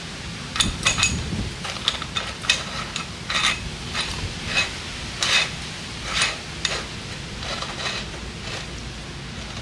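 Light aluminium pump fittings clinking and knocking as a threaded port fitting is handled and fitted onto a small aluminium water pump body: a string of sharp metallic clicks, busiest in the first seven seconds, then thinning out.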